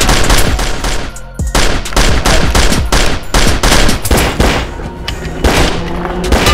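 Rapid handgun gunfire, many shots in quick succession with a short break about a second in, over background music.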